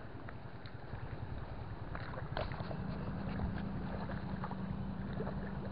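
Open-air wind rumble on the microphone, with a steady low engine hum coming in about halfway through and a few short, high chirps scattered over it.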